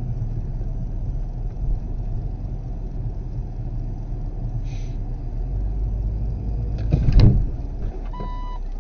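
Steady low engine and road hum heard from inside a car, broken about seven seconds in by a sudden loud thump and rumble as a cyclist cuts in front of the bonnet. About a second later a short electronic beep sounds.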